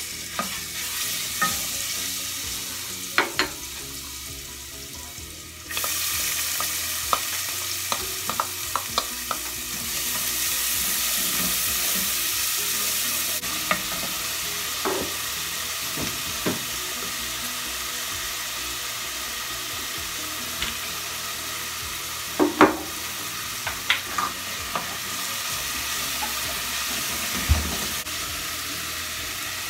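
Chopped onion and garlic sizzling in olive oil in an aluminium saucepan, stirred with a wooden spoon that now and then knocks and scrapes against the pan. The sizzle gets louder about six seconds in.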